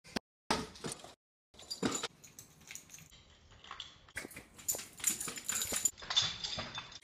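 A small dog running and jumping on a hardwood floor, its claws clicking and skittering on the boards in quick irregular taps. The sound cuts out abruptly twice near the start.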